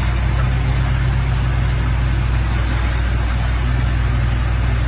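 A machine's engine running steadily with a deep, even hum.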